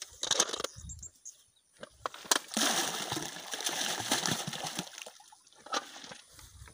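A basinful of lumps thrown into a fish pond, splashing into the water for about two and a half seconds starting about two seconds in, with a brief rustle and a few sharp knocks before it.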